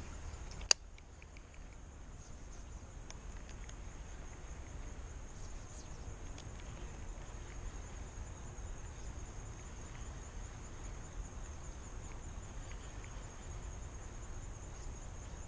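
Steady high insect chorus, an even chirring that carries through, over faint outdoor rumble; a single sharp click sounds about a second in.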